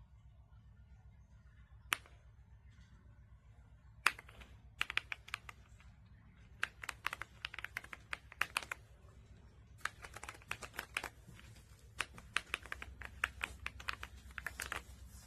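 AULA S98 Pro mechanical keyboard with pre-lubed linear switches being typed on: a single keystroke about two seconds in, then quick runs of keystrokes in four bursts with short pauses between them.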